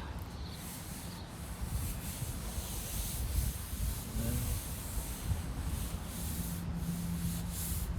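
Sandpaper rubbing steadily over body filler on a fiberglass patch, a continuous rough scraping, as the patched surface is smoothed down.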